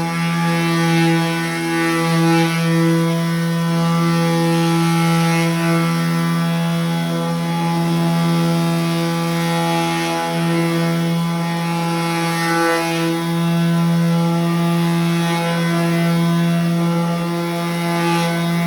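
Cordless brushless electric sander running with a steady motor whine, its pad rubbing over a painted metal panel with a hiss that swells and fades every second or two as it is worked back and forth.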